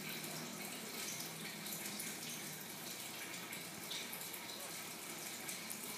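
Steady trickling of water circulating through a saltwater reef aquarium.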